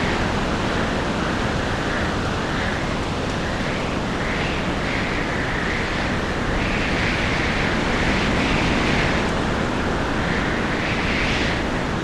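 Stormy sea: waves breaking and wind blowing in one continuous rushing noise that swells and eases every second or two.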